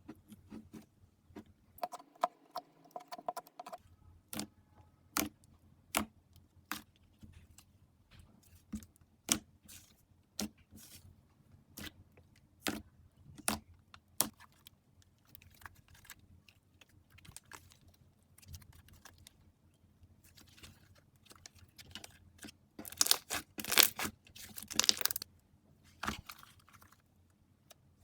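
Slime being squeezed and pressed by hand, giving a string of short, sharp pops and clicks, with a louder, denser run of crackling near the end.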